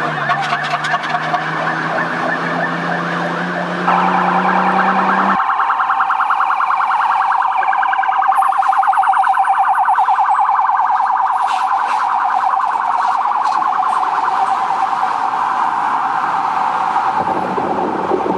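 Fire engine siren sounding a fast warble that gets louder about four seconds in. A lower steady tone underneath it cuts off about five seconds in.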